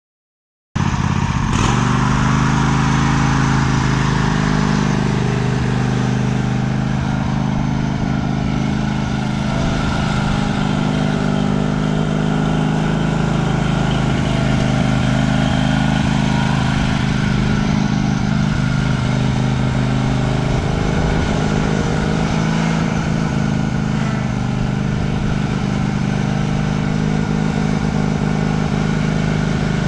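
Cub Cadet Super LT 1550 lawn tractor's engine running at a steady speed, starting abruptly about a second in.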